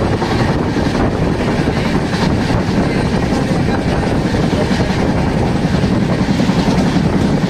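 Indian Railways passenger train running at speed, heard from an opening in the coach's side: a steady rumble of wheels on the rails mixed with rushing wind.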